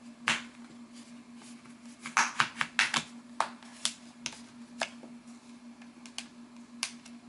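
Plastic clips of a Samsung ATIV Smart PC Pro 700T tablet's case snapping and clicking as a plastic pry tool works them loose around the edge. One loud click comes just after the start, a quick run of clicks about two to three seconds in, then scattered single clicks, over a faint steady low hum.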